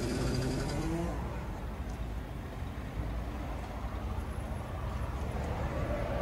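A vehicle engine idling nearby: a steady low rumble with no distinct events.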